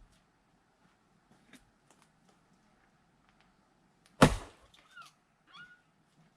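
A single sharp, loud axe strike into a log of firewood about four seconds in, ringing briefly as it splits. Faint clicks and knocks from handling wood come before it, and two short, faint squeaks follow.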